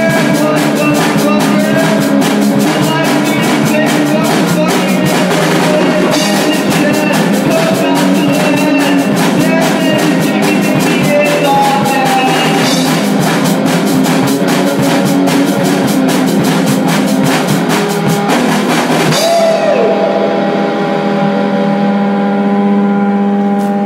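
Hardcore punk band recording: fast, dense drum kit and guitar playing an instrumental passage with no vocals. About 19 seconds in the drums stop and a held guitar chord is left ringing.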